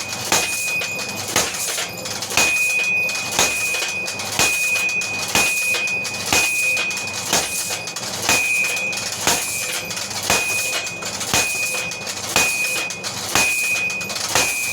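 Power hammer running and striking a hot steel bar in a steady rhythm of about one blow a second, each blow followed by a short high ring, over the steady noise of its drive.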